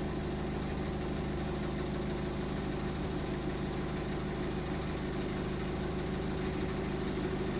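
Narrowboat's diesel engine running steadily at low revs, an even low throb with a regular beat.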